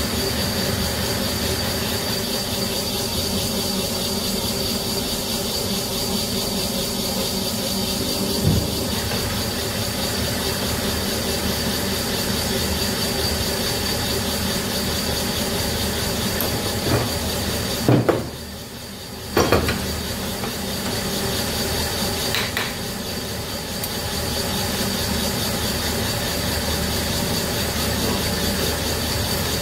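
Small bench lathe running steadily with a high whine while boring out a connecting rod's bronze small-end bush. There are a few knocks, and the machine noise drops briefly a little past halfway, with a knock on either side of the drop.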